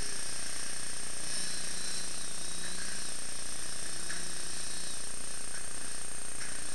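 A motor running steadily and evenly, with a fainter engine tone swelling through the middle.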